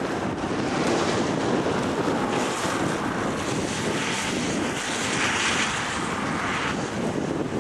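Strong wind buffeting the microphone: a steady rushing noise, with a harsher hiss that comes in about four seconds in and drops away shortly before the end.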